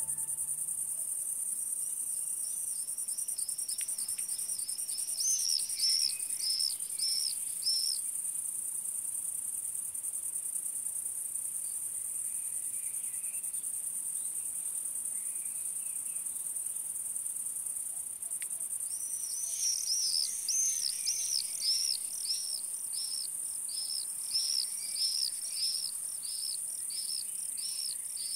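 Steady high-pitched buzzing of insects stridulating in grass, crickets or bush-crickets, with two runs of rapid repeated high chirps: one a few seconds in, the other through the last third.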